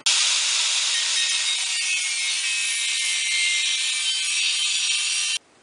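Angle grinder with a cut-off wheel cutting through the steel end of a 5-gallon air tank: a steady, high, hissing grind that cuts off suddenly near the end.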